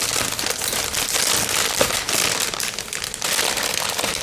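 Plastic mailing bags crinkling and rustling as they are handled and pulled open, a continuous dense crackle with many small clicks.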